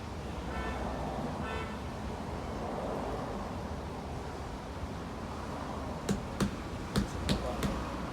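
Two short car horn toots about a second apart, over a steady low rumble of traffic. Near the end come five sharp clicks in quick succession.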